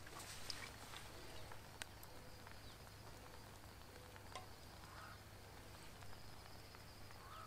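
Very faint: a few light clicks of a knife picking at grilled fish in an aluminium-foil packet, a second or more apart.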